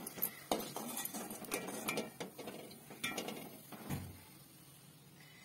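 Hot oil sizzling and crackling around a rava appam deep-frying in a kadai, the crackle thinning out as it goes. About four seconds in there is a low knock as a slotted spoon lifts the appam from the oil.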